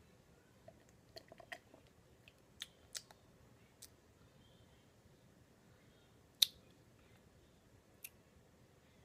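Faint sipping and swallowing from a coffee mug: a cluster of small mouth clicks and slurps in the first couple of seconds, then a few single sharp clicks, the loudest about six and a half seconds in.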